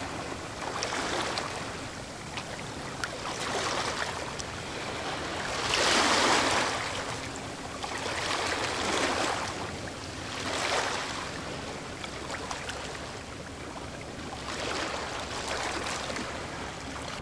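Small harbor waves lapping, in soft washes that swell and fade every second or two, the loudest about six seconds in.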